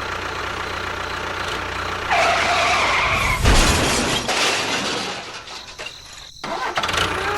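A motor runs steadily. About two seconds in, a harsh screeching noise starts and lasts about a second, followed by a louder rush of noise that fades away. The sound cuts off abruptly near the end.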